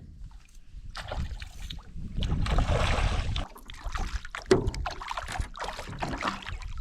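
Knocking and splashing in a small boat as a hooked brook trout is brought in, over a low rumble. The densest splashing comes about two to three seconds in.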